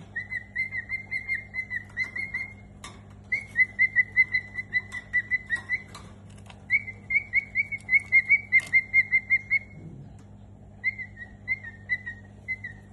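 Cockatiel chirping in rapid runs of short, high, even-pitched notes, about six a second, pausing briefly three times. A faint steady low hum runs underneath.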